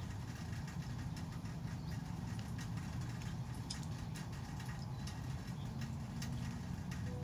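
Faint, irregular light clicks and taps from handling a smartphone in a soft case and tapping its screen, over a steady low background rumble.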